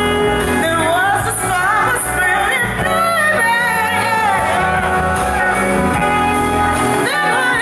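Live band playing, with a woman singing lead over electric guitar.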